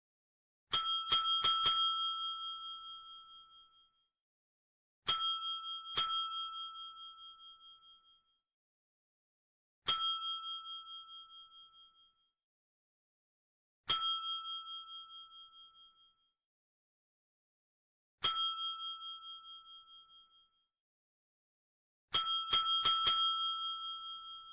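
Desk bell (counter service bell) struck in groups. First comes a quick run of four rings, then two, then three single rings a few seconds apart, and a quick run of about five near the end. Each ring is bright and clear, with a wavering ring-out that fades over about two seconds.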